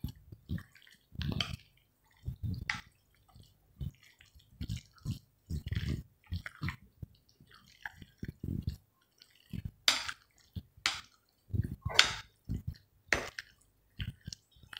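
A hand mixing curd rice in a ceramic bowl: irregular soft, wet squishing of the rice and curd, with a few sharper clicks about two-thirds of the way through.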